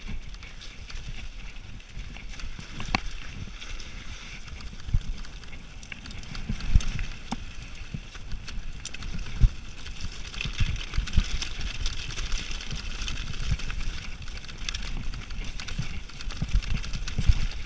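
Specialized Demo 7 downhill mountain bike running fast over loose rocky scree: a steady hiss of tyres on stones, with irregular knocks and thuds as the wheels and suspension hit rocks, and a few sharp clicks.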